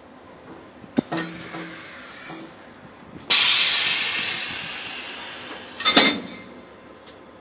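Train air brakes hissing as a locomotive buffers up to a couchette car during shunting: a click and a short hiss, then a sudden loud hiss of compressed air that fades over about two and a half seconds, and a sharp metallic clank with a burst of air near the end.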